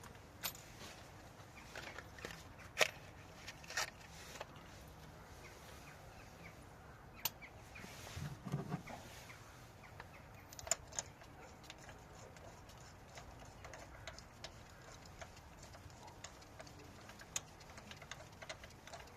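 Scattered sharp clicks and light knocks of hand tools on metal while spark plugs are being refitted, with a short low thud about eight seconds in.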